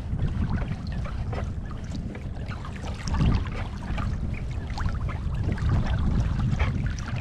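Water lapping and splashing around a small boat, with many small irregular splashes over a steady low rumble.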